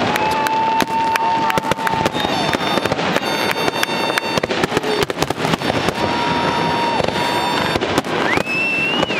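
Aerial fireworks bursting in quick succession, a dense run of bangs and crackles. Several high whistles are held for a second or two each, one rising near the end.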